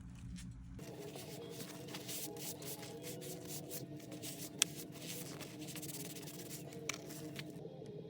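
A cloth rubbing antique stain into a veg-tan leather strap, a scratchy rubbing with a few light clicks, over a steady background hum.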